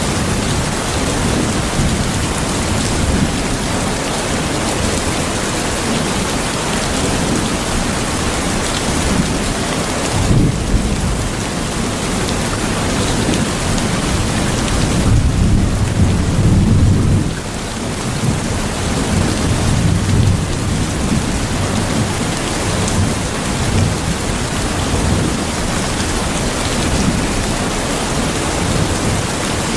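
Steady heavy rain, with low rumbles of thunder rolling in about ten seconds in and again in the middle.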